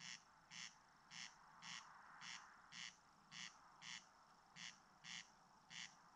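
Corncrake calling: a dry, rasping crex-crex, two rasps about half a second apart, the pair repeated about once a second.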